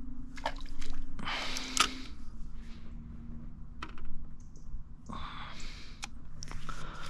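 Scattered sharp clicks and short rustles of fishing tackle being handled, over a faint steady low hum.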